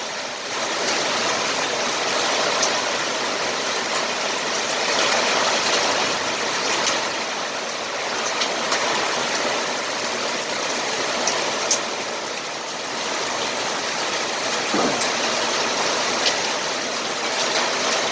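Steady downpour with scattered sharp pings of small hailstones hitting, the hail just beginning to fall.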